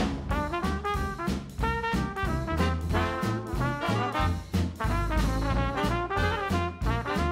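Background music: upbeat swing-style jazz with brass over a steady bass line and beat.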